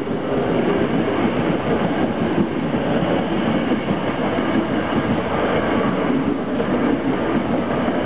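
A Toei 5300 series commuter train passing close by at speed, with a steady, loud rumble of wheels on the rails.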